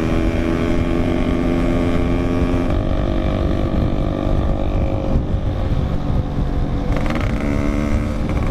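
Yamaha RX-King's 135 cc single-cylinder two-stroke engine running under way, its note dropping about three seconds in as the throttle eases and climbing again near the end, with wind rumbling on the microphone.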